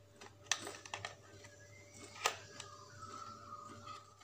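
Small plastic clicks and taps as a toy drone's plastic remote controller is handled and turned over in the hands, with a sharper click about half a second in and another just after two seconds.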